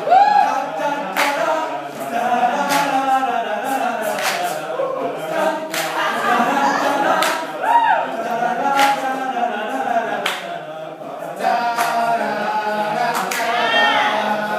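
Male a cappella group singing in several voice parts, with sharp claps every second or so and high rising vocal swoops near the start, midway and near the end.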